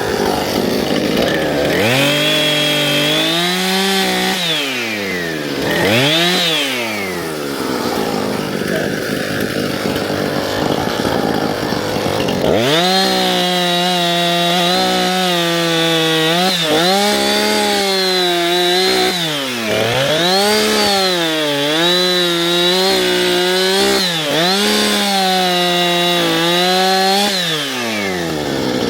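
Small two-stroke engine of a handheld landscaping power tool, such as a string trimmer or edger, being throttled up to high revs and let back down again and again. It revs up about two seconds in and twice more, runs lower and rougher from about eight to twelve seconds, then revs up and down rapidly many times before dropping off near the end.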